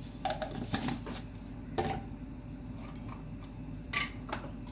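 A spoon and kitchen utensils clink and knock against a cooking pot: about half a dozen separate short clicks, spread out, over a steady low hum.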